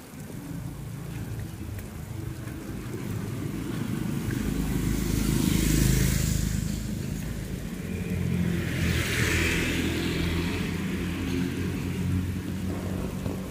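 Motorcycles running past on a wet road, their tyres hissing through the water; the sound swells to its loudest about six seconds in, with a second swish around nine seconds.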